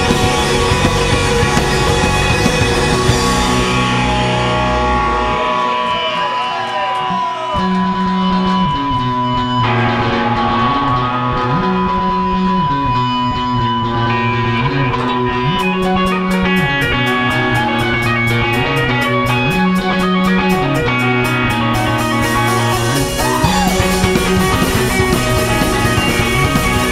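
Live rock band playing an instrumental passage: electric guitars over bass and drums. The low end drops out briefly about six seconds in, then a repeating bass line comes back, and steady cymbal strokes join about halfway through.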